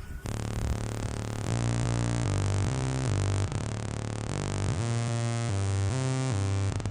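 Synthesizer background music with a steady bass line and chords changing about every half second.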